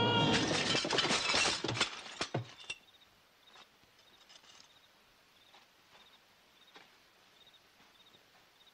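A loud slapstick crash of shattering and clattering lasting about two seconds, dying away into a few clinks.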